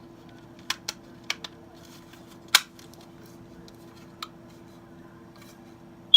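A few sharp clicks and taps from handling, the loudest about two and a half seconds in, over a steady low hum. Right at the end a smoke detector starts a loud, high-pitched beep.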